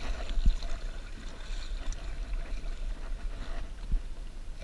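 Sea water lapping and splashing against a fishing kayak's hull over a steady low rumble, with two short low knocks, about half a second in and again near the end.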